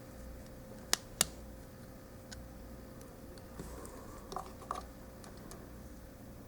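Small plastic model-kit parts being handled and pressed onto their pegs: two sharp clicks about a second in, then a few fainter taps and ticks.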